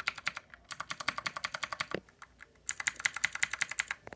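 Mechanical keyboard switches pressed rapidly over and over, about ten clicks a second, in three quick runs with short pauses between.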